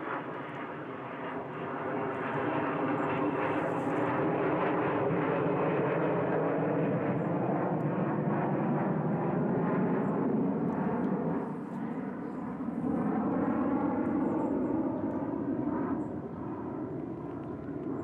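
Engine drone of a passing aircraft, swelling over the first few seconds, dipping briefly about twelve seconds in, then rising again and fading near the end.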